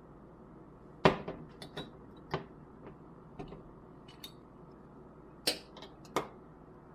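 Irregular sharp clicks and knocks of hard objects being handled, about a dozen in all, the loudest about a second in and again about five and a half seconds in.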